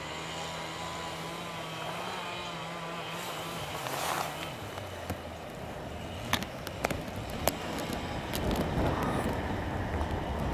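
Steam locomotive approaching tender-first, its running sound growing louder as it nears. A series of sharp clicks comes in the second half.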